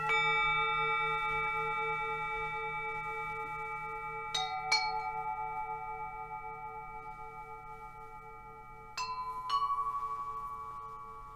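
Struck bells, a singing-bowl kind of ringing, each stroke sounding several long, slowly fading tones with a pulsing low hum beneath. One stroke at the start, a pair a little over four seconds in, and another pair about nine seconds in, at slightly different pitches.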